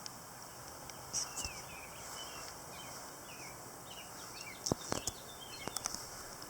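Small birds chirping over a steady outdoor hiss, with a few sharp clicks or taps about two-thirds of the way through.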